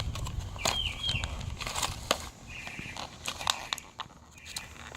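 Plastic toy packaging crinkling and rustling in irregular crackles and clicks as it is opened by hand, with a few short, high chirping sounds.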